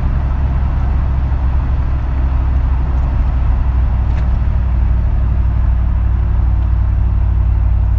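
Truck engine and straight-through exhaust, fitted with a second X-pipe to tone down popping, droning steadily at a light cruise of about 55 mph and just under 2,000 rpm, heard from inside the cabin.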